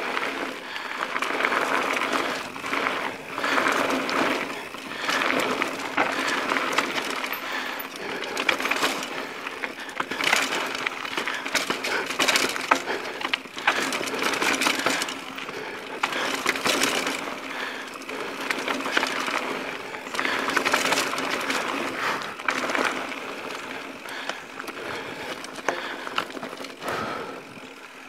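Mountain bike riding fast down a dirt and rock singletrack: tyres crunching over loose gravel and rock while the frame and chain rattle and clatter over the bumps, with many sharp knocks. The noise swells and dips with the terrain and eases near the end as the trail flattens out.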